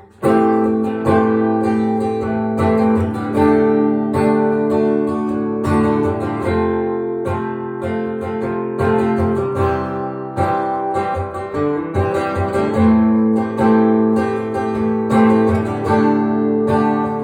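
Acoustic guitar strummed in a steady rhythm of full chords, with no singing: an instrumental break in a live song. The strumming comes back in sharply after a brief pause.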